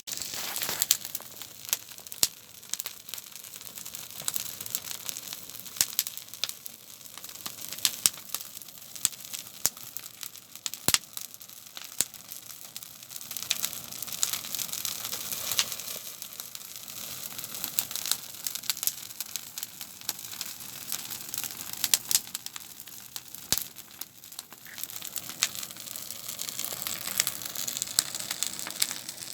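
Campfire burning with a steady hiss, crackling and popping throughout in many sharp, irregular snaps.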